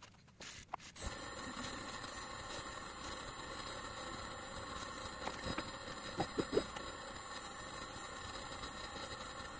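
Wood lathe switched on about a second in, then running at a steady speed with an even motor hum and whine made of several steady tones, while a cloth is held against the inside of the spinning burl bowl to polish it. A few soft knocks sound about midway.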